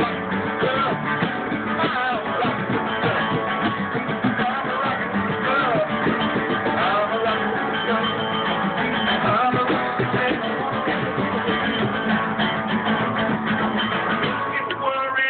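Small acoustic string band playing a tune: strummed acoustic guitar with a second plucked stringed instrument.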